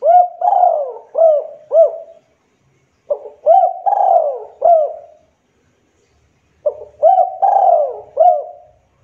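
A local Javanese spotted dove (derkuku) cooing: three phrases about three and a half seconds apart, each a short note followed by a run of arching coos.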